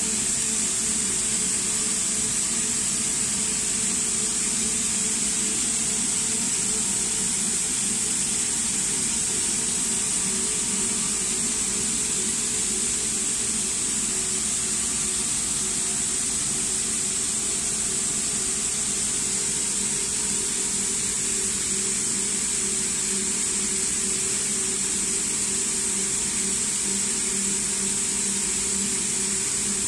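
Edge-trim winding machine running steadily, drawing in slit-off edge strips and winding them onto a reel: an even motor hum with a constant high hiss.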